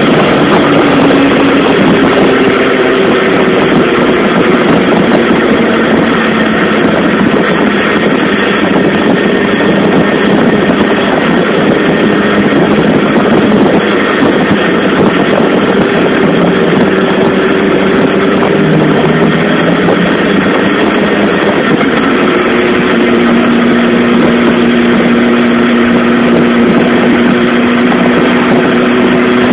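Suzuki GSX-R SRAD motorcycle's inline-four engine running steadily on the move, its pitch dipping and rising a little as the speed changes, under a loud, steady rushing noise.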